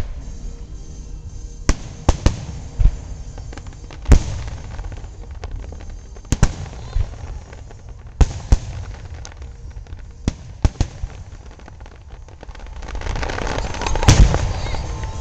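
Aerial fireworks going off: separate sharp bangs every second or two, then a dense run of crackling and booming near the end.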